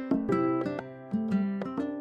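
Background music: light plucked-string melody, ukulele-like, with notes several times a second.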